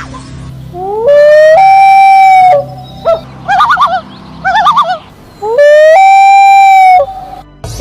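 A bird calling: two long, loud calls that each slide up and then hold one steady pitch, with a fast warbling trill of quick up-and-down notes between them.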